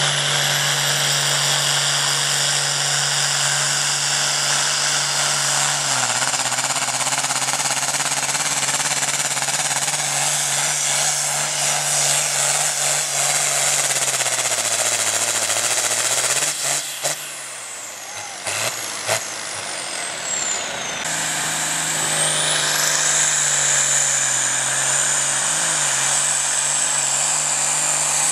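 Diesel farm tractor engines at full load pulling a weight-transfer sled, first a John Deere, then a Case, each with a high whistle rising over the engine. The first engine's note drops and fades partway through before the second comes in, louder.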